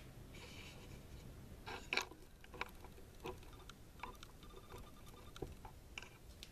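Faint scattered clicks and taps with a short rustle near the start: a pencil and taped paper being handled on a wooden workbench.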